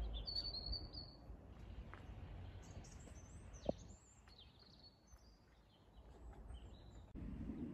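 Faint outdoor ambience of small birds chirping and whistling, with a low wind rumble that is strongest in the first second and one sharp click a little before halfway.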